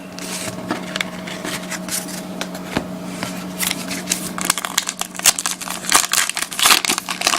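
Trading card pack wrapper being torn open and crinkled, with cards handled: a run of quick crackles and clicks that gets busier about halfway through, over a steady low hum.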